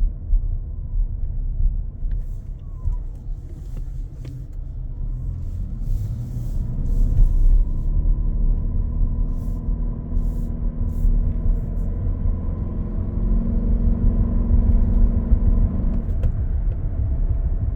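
Inside the cabin of a 2025 Toyota Grand Highlander Hybrid while driving: a steady road rumble, with a thin high-pitched electrical whine that comes in a few seconds in and cuts off near the end. This is the persistent whine the owner reports, most noticeable under acceleration.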